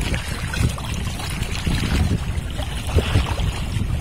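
Seawater splashing and sloshing around a large stingray thrashing at the surface against the side of a small wooden boat.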